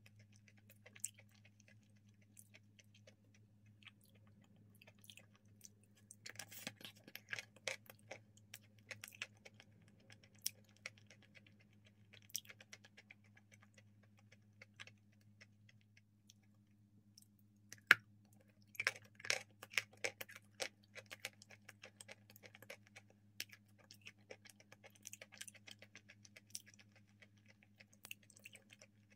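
Close-up eating sounds: a person chewing and working a soft, sticky paste in the mouth, with wet clicks and smacks coming in bursts and one sharp click about eighteen seconds in. A steady low hum runs underneath.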